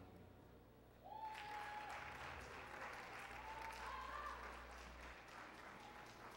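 Spectators in an ice rink applauding at the end of a skating program, the clapping starting about a second in and slowly fading. A long, high held call, a cheer, rises a little over it.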